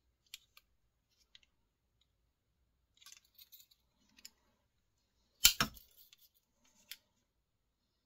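Victorinox Ranger 78 multitool pocket knife being handled: light clicks and rustles, one loud snap about five and a half seconds in, and another sharp click near the end.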